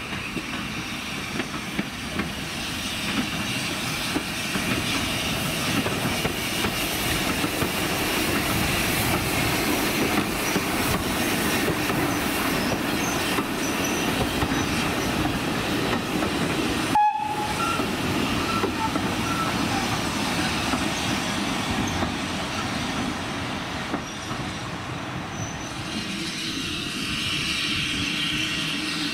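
Manning Wardle L Class saddle-tank steam locomotive working past at low speed with a carriage: steam exhaust and wheels clacking over the rails, with light squealing from the wheels. The sound cuts out for a moment a little past halfway.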